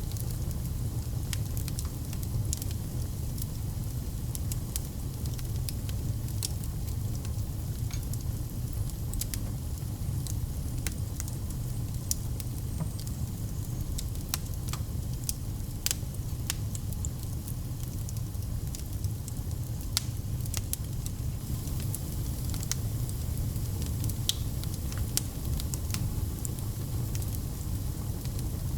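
Wood fire burning in a fireplace: a steady low rumble of the flames with frequent sharp crackles and pops scattered irregularly throughout.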